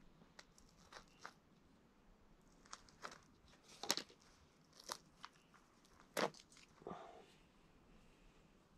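A grouse being cleaned by hand with a knife: scattered crackling tears and crunches as skin and feathers are pulled from the carcass, the loudest about four and about six seconds in.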